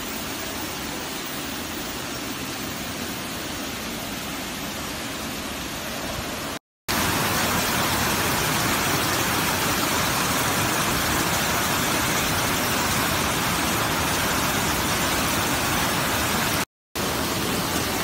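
Steady rush of water from the Datanla waterfall. It gets louder after a short break about seven seconds in, and breaks off briefly again near the end.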